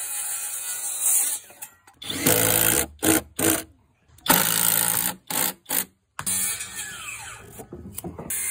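Short bursts of Flex cordless power tools, a circular saw and an impact driver, each starting up and running briefly, separated by abrupt cuts to silence.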